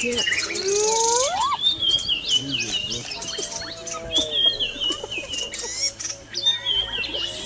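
Spotted hyena calling, with one rising call about a second in, over birds chirping in quick repeated runs.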